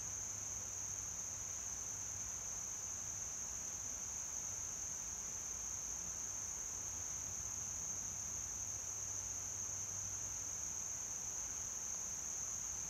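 Steady, unbroken high-pitched chorus of insects in the surrounding trees.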